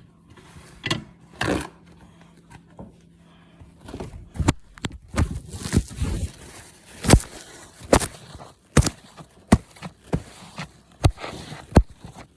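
A string of sharp, irregular knocks and clicks, roughly one a second, starting about four seconds in after a few softer knocks.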